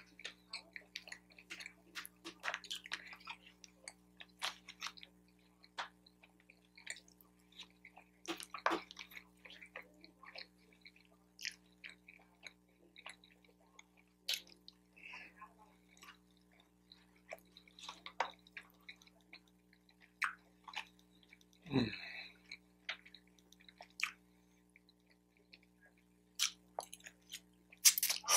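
Close-miked chewing and wet mouth sounds of a person eating fried rice and General Tso's chicken, with scattered small clicks of a fork against a plastic takeout tray. Near the end comes a louder burst as lo mein noodles are slurped in.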